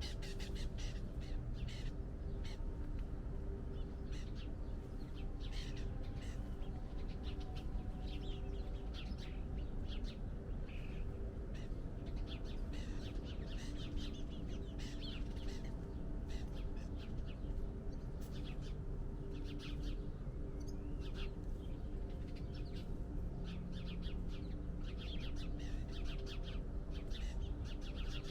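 Several birds calling and chirping in quick, repeated short notes, over a steady low rumble.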